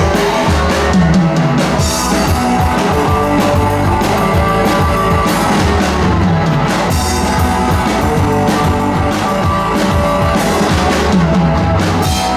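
Live rock band playing an instrumental passage: electric guitars, bass guitar and a drum kit with cymbals, loud and driving, with no vocals.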